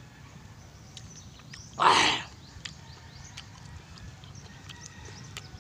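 A man's loud, sharp breath through the lips, about two seconds in and lasting half a second: a reaction to the sourness and chili heat of the green lemons he is eating. Faint clicks of chewing and lip smacks around it.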